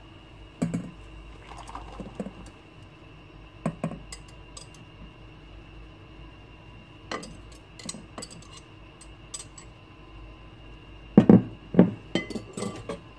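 Glass mixing bowl, wire whisk and stainless steel saucepan clinking and knocking as custard mix of egg yolk and warm milk is poured from the bowl back into the pot. The knocks are scattered, with the loudest cluster near the end as the whisk works against the glass bowl.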